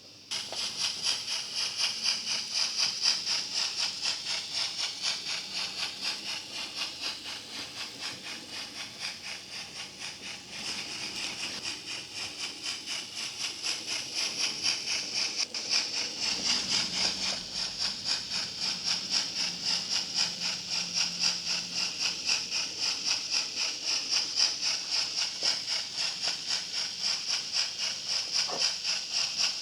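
Model steam-locomotive train running on the layout: a steady hissing with a fast, even pulse.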